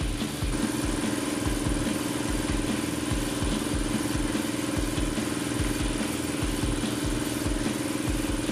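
A machine running steadily: a constant hum with a high thin whine and an uneven low thudding underneath, cutting off suddenly near the end.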